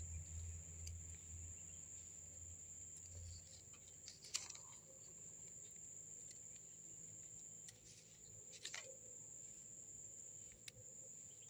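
Near silence outdoors: a faint, steady, high insect drone, typical of crickets, with a few soft clicks, the loudest about four seconds in.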